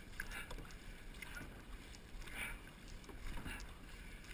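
Dragon boat crew paddling in unison: the blades splash and pull through the water together about once a second, over a low steady rumble.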